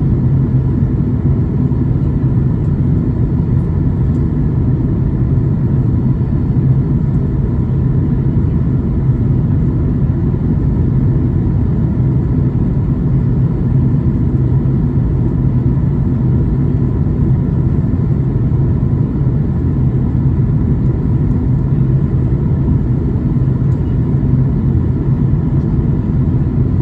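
Steady low rumble inside the cabin of a Boeing 737 MAX 8 in flight: engine and airflow noise from a window seat.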